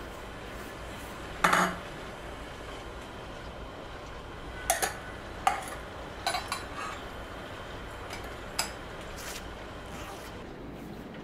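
Kitchen dishes and steel utensils clinking and knocking as a stainless-steel tiffin box and bowls are handled: about seven separate sharp clinks, the loudest and longest about one and a half seconds in, a quick run of them around the middle, over a steady low hiss.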